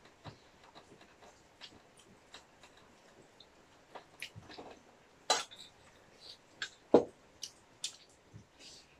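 Quiet eating sounds: a spoon scraping and clinking on a plate, fingers working rice and chewing, with scattered small clicks and two sharper knocks about five and seven seconds in.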